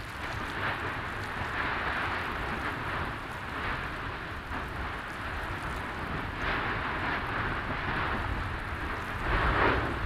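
Lava fountains of the 2022 Fagradalsfjall (Meradalir) fissure eruption: a steady rushing noise over a low rumble that swells in surges, strongest near the end.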